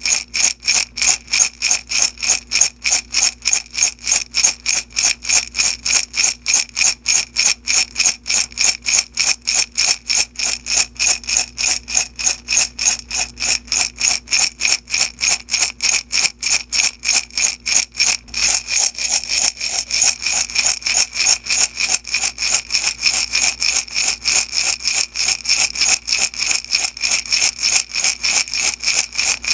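Beads shaken back and forth in a glass jar, a bright rattle in a steady, rapid rhythm of strokes that runs together into a more continuous rattle a little past halfway.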